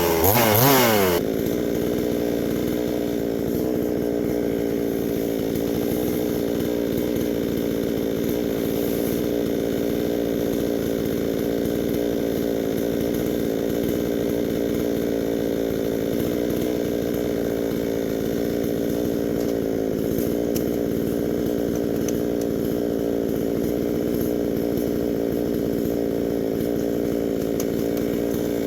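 Two-stroke chainsaw revving up and down for about a second, then dropping abruptly to a steady, even running note, most likely idling, for the rest of the time.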